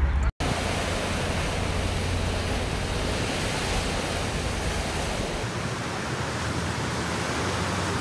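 Sea surf washing over shoreline rocks, a steady rushing hiss of breaking waves, cut off for an instant just after the start.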